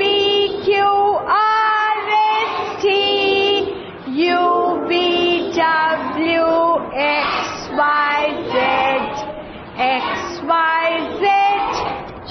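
A woman and a group of young children singing an alphabet rhyme together, in sustained sung notes that change every half second or so.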